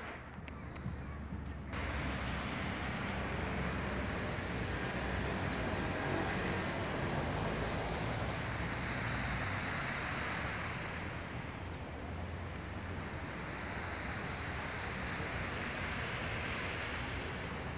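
Small sea waves washing on the shore, a steady hiss of surf that begins fully about two seconds in and swells twice, with wind rumbling on the microphone.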